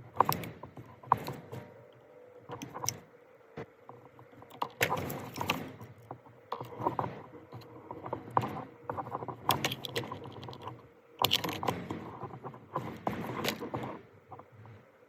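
Small hard parts being handled and worked by hand: irregular clicks, taps and clattering in uneven clusters, with a faint steady hum underneath.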